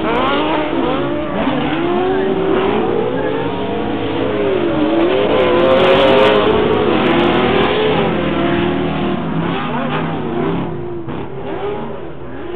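Several off-road race cars' engines revving up and down as they race past on a dirt track, their pitches rising and falling over each other. Loudest about six seconds in, then easing off near the end.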